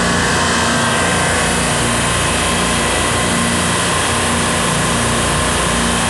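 Semi-hermetic reciprocating compressors on a supermarket low-temperature refrigeration rack running with a loud, steady mechanical hum.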